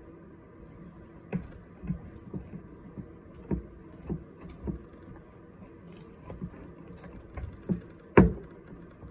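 A spatula stirring thick, sticky slime in a plastic mixing bowl, making a string of irregular soft knocks against the bowl, with one louder thump near the end.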